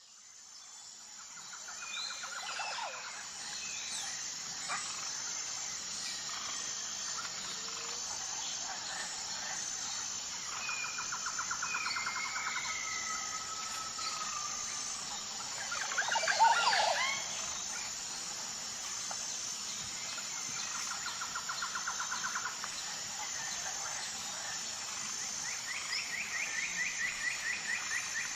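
Outdoor nature ambience: a steady high insect chirring runs throughout while birds call over it in repeated rapid trills, with the loudest burst of calls about halfway through. It fades in at the start.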